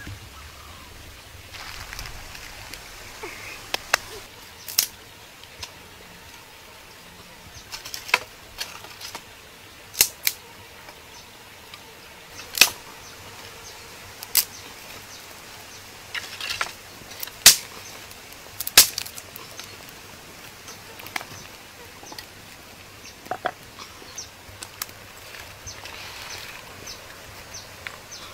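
Dry sticks snapping sharply as they are broken by hand for firewood, a dozen or so cracks at irregular intervals, over the steady hiss of a shallow stream.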